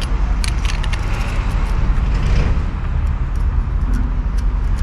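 Light metallic clicks and clinks of a wrench and locking pin against the hub of a rotary wire brush as it is tightened onto a trimmer head, over a steady low rumble.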